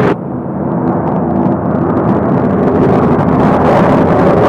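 Pratt & Whitney R-2800 radial engine of a P-47 Thunderbolt fighter-bomber running at high power, a loud steady drone with a rough, rumbling edge.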